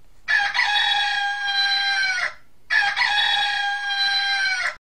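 Rooster crowing twice, each crow about two seconds long and falling in pitch at its end. The sound cuts off suddenly after the second crow.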